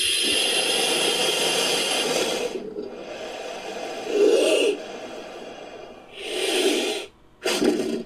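Made-up monster-snake sound effect built from giant-snake and crocodilian recordings: a long hiss for about two and a half seconds, then three short, deeper bursts of calling, the first of them the loudest.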